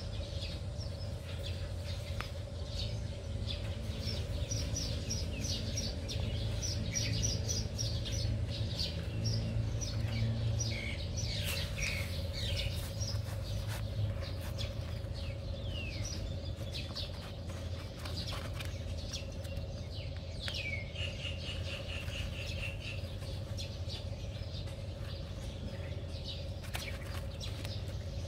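Small birds chirping and calling, many short high notes throughout, with a quick run of repeated notes partway through, over a steady low hum.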